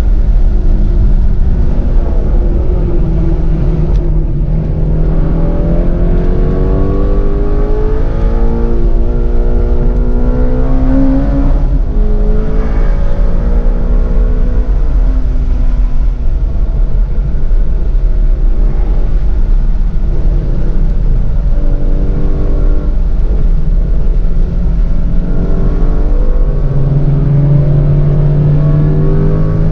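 Shelby GT350's 5.2-litre flat-plane-crank V8 driven hard on track laps, its note climbing steadily in pitch through each gear and dropping back at the upshifts, over a heavy low road rumble.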